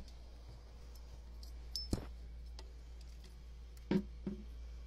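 A few sharp clicks and light knocks from things being handled, one about two seconds in and a close pair near the end, over a low steady hum.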